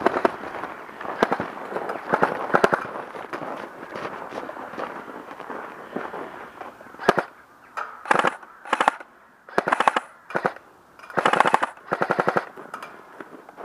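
Airsoft rifles firing: scattered single snaps in the first half, then several short bursts of rapid automatic fire from about seven seconds in.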